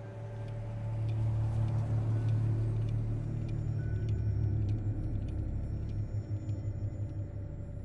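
A low, steady rumble that swells up about a second in, with faint ticks and thin high tones over it from about three seconds in.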